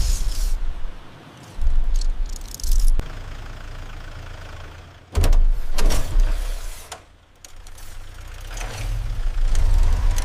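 Cinematic sound effects of heavy mechanical impacts over a deep low rumble, with a loud boom about five seconds in and quieter hits before it.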